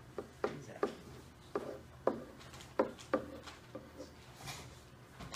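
A pen tapping and rubbing on a whiteboard surface as numbers are written, a string of short, irregular taps.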